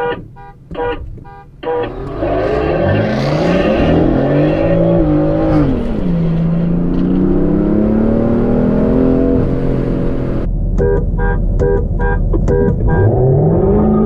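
Jaguar F-Type R and tuned BMW F80 M3 launching from a standing start, engines at full throttle, their pitch climbing, dipping at an upshift about five seconds in, then climbing again until about nine seconds in. Pulsing electronic music plays over the first two seconds and again from about ten seconds in.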